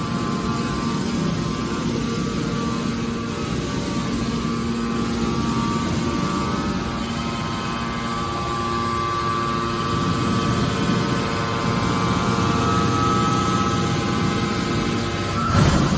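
Hydraulic scrap-metal baler running: a steady drone of its motor and hydraulic pump with a whine of several steady tones. A single short, loud bang comes near the end.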